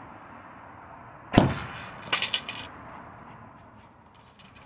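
A single loud thump about a second and a half in, followed by a short burst of sharp clicks and rattles.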